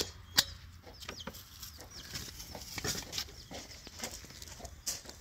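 Chickens clucking, with two sharp clicks near the start and scattered lighter knocks.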